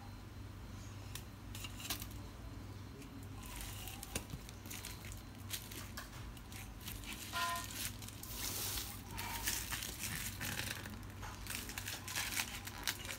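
Packing tape and plastic wrap on a cardboard box crinkling and tearing as the box is pulled open by hand: sparse crackles at first, turning into busy crinkling from about the middle.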